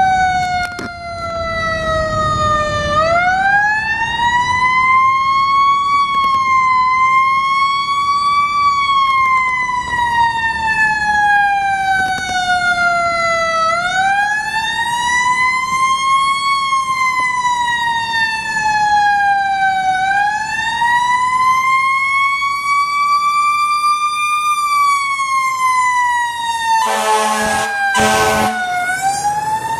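Fire truck siren wailing, its pitch sliding slowly up and down about every five to six seconds. Near the end two short, lower horn blasts sound over it.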